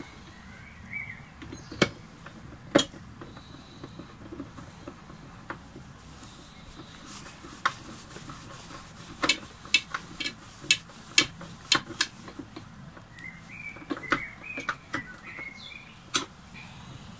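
Scattered sharp clicks and knocks, irregular and clustered in the second half, with a few short bird chirps about a second in and again near the end.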